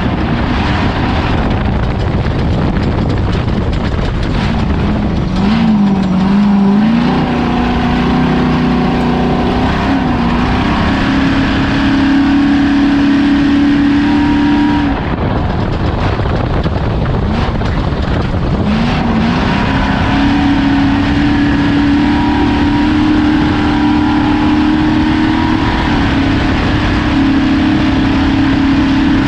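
Off-road race vehicle's engine running hard at steady high revs, easing off and picking back up twice, over a constant wash of noise.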